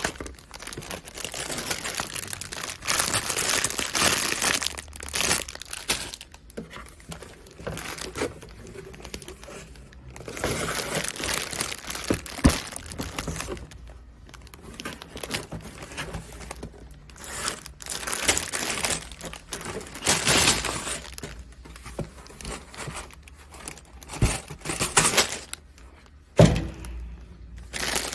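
Plastic bags of Lego pieces crinkling and rustling as they are handled and taken out of the box, in irregular bursts, with a sharp knock about twelve seconds in and another near the end.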